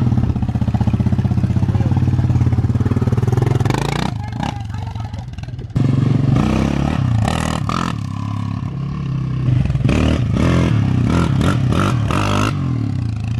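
Sport quad (ATV) engine running and revving under throttle. The engine note falls away about four seconds in and comes back abruptly just before six seconds, then rises and falls unevenly with quick throttle blips near the end.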